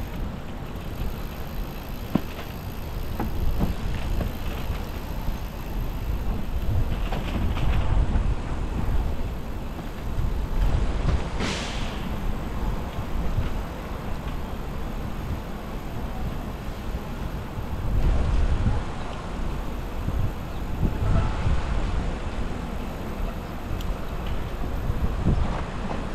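Wind buffeting a bicycle-mounted camera's microphone, with tyre and road noise while riding along. The rumble swells and eases, and a brief high-pitched sound comes about eleven seconds in.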